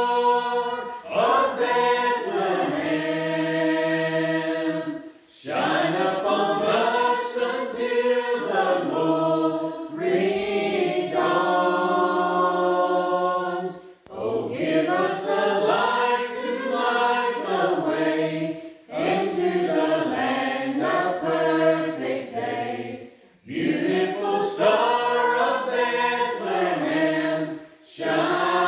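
A small group of mixed men's and women's voices singing a Christmas carol together from hymnals, in long held phrases with brief pauses between them.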